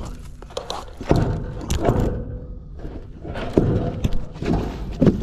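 Heavy rusted scrap metal on a fishing magnet being handled on a wooden deck: a string of irregular clunks and knocks with some scraping.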